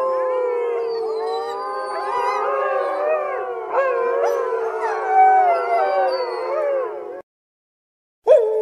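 Wolves howling together: several long howls overlap, one low howl held steady beneath higher ones that rise and fall. The howling cuts off abruptly about seven seconds in, and a new howl starts just before the end.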